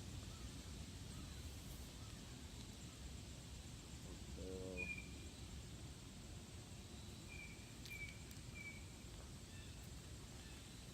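Quiet open-field ambience with a steady low hiss. A few faint, short, high bird chirps sound in the second half, and a brief low pitched call comes about four and a half seconds in.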